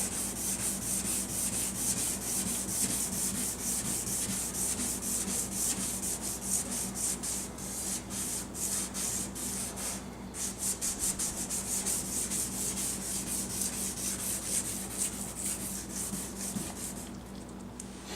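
Hand sanding of a plastic headlight lens with the coarse number-1 abrasive pad of a Turtle Wax headlight restorer kit, wet with spray lubricant: quick up-and-down strokes, several a second, with a short break about ten seconds in. It is taking a thin layer off the yellowed plastic, and the strokes fade out near the end.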